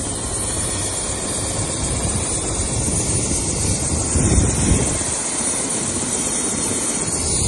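Light turbine helicopter running on the ground at close range, its main rotor turning, steady throughout with a louder surge a little past the middle.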